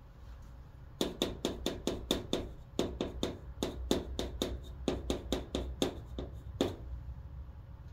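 Chalk writing on a chalkboard: a quick run of short taps and scratches of the chalk stick on the board as Korean letters are written, starting about a second in and easing off near the end.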